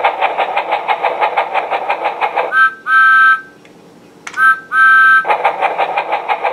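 Electronic steam-train sound effect from a My First Thomas Project and Play Thomas toy's small speaker: an even chugging at about six chuffs a second, then a two-note whistle sounding twice, each a short toot followed by a longer one, then the chugging starts again.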